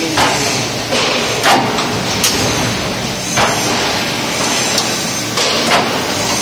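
CNC angle-bar punching machine working steel angle bar: a steady machine noise with heavy metal clanks and thuds at uneven intervals, about eight in all.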